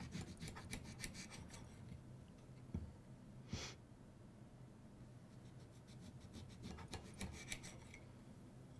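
Faint scraping strokes of a knife sawing through a lime on a plate, in a quick run near the start and another near the end, with one short hiss about three and a half seconds in. A faint steady low hum sits underneath.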